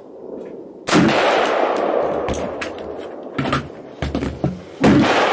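AR-15 rifle in .223 firing a shot about a second in, the report dying away in a long echo. A few fainter shots follow, and a second loud gunshot comes near the end.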